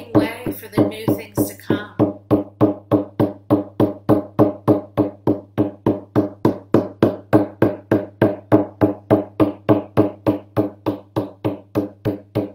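Hand-held frame drum beaten in a steady, even rhythm of about four beats a second.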